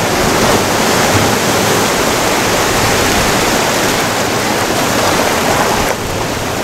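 Ocean surf breaking and washing over rocks and sand: a loud, steady rush that eases slightly near the end.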